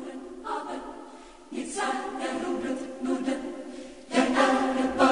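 Background music: a choir singing, the voices growing fuller about a second and a half in and louder again about four seconds in.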